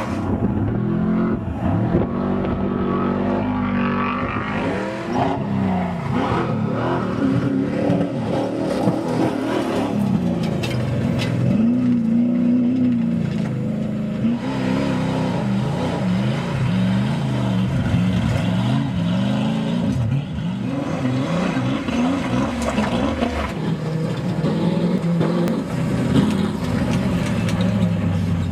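Off-road desert race trucks' engines revving up and down again and again as they run the course, the pitch climbing and dropping through gear changes and throttle lifts, with tyre and dirt noise underneath.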